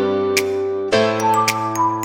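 Background music: plucked guitar chords with a light ticking beat, the chord changing about a second in.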